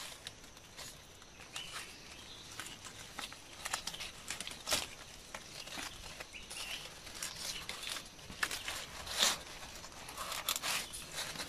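Stiff Arenga palm leaves and leaf strips rustling and crackling as they are woven into a mat, in irregular sharp crackles, two of them louder: one near the middle and one about three-quarters through.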